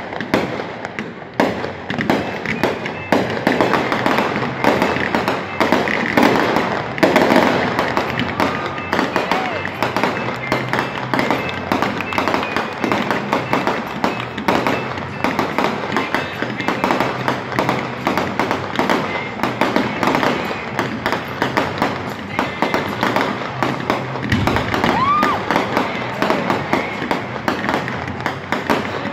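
Aerial fireworks display in a dense, continuous barrage: bangs and crackles following one another many times a second without a break.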